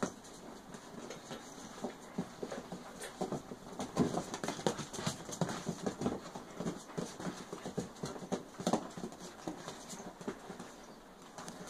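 A Siamese cat and a chihuahua puppy play-fighting on a fabric-covered couch: irregular scuffling, pattering and soft thumps of paws on the cloth, busiest a few seconds in.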